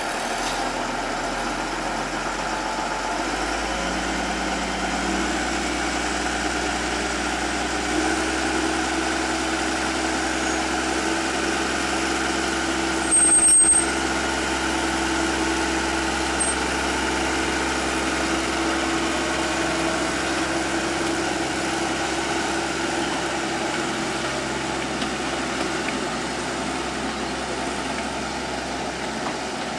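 Small narrow-gauge diesel locomotive's engine running as it moves slowly with a coach. Its note steps up a few seconds in and then holds steady. A loud burst lasting about a second comes about halfway through.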